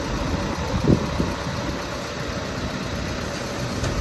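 Flatbed truck's engine running steadily to power its truck-mounted hydraulic crane as the crane lifts a load, with a couple of short knocks about a second in.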